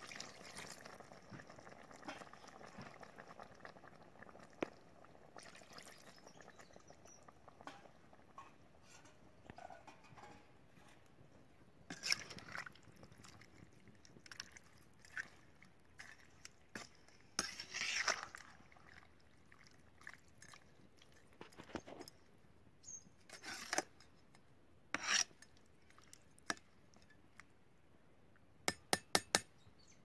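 Water poured from a steel tumbler into a steel pan of curry, then a perforated steel ladle stirring and clinking against the pan every few seconds, ending with a quick run of taps.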